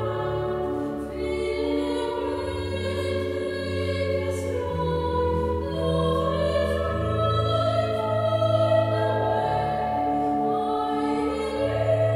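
A female voice singing slow, held phrases over church organ accompaniment; the organ's low notes change every few seconds beneath the melody.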